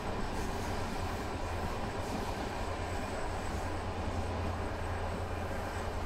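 Steady rumble and rush of a passenger train running along the line, heard from inside the carriage, with a strong low rumble underneath.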